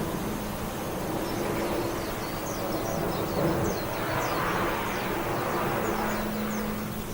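Steady rushing noise with a low hum underneath, and a run of short high chirps scattered through the middle.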